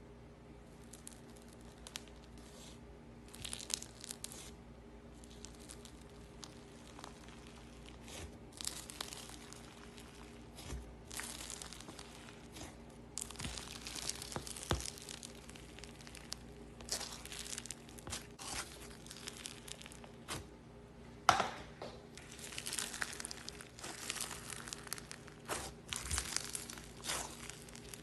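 Slime being squeezed and stretched by hand, with irregular crackling, crinkling pops that come thicker and louder in the second half. A faint steady hum lies underneath.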